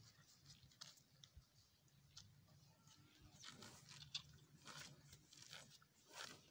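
Near silence broken by faint crunches and rips of cattle tearing and chewing grass, a handful of them in the second half.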